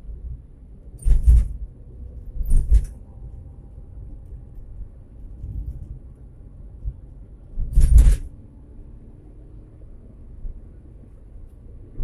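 Steady low road and engine rumble of a car driving along a road, broken by three short, loud bursts of noise: about a second in, again a second and a half later, and once more about two-thirds through.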